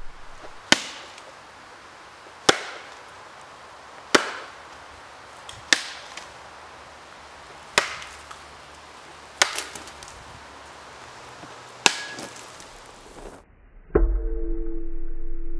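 Baseball bat smashing fruit and objects set on a wooden tree stump: a series of about seven sharp whacks, one every one and a half to two seconds. Near the end a louder whack is followed by a steady low rumble and hum.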